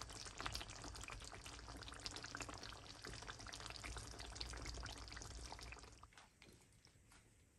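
Chicken curry bubbling and sizzling in its separated oil in a pan, a dense crackle of small pops, the sign that the oil has separated and the curry is cooked down. The sizzle stops about six seconds in, leaving only a few faint clicks.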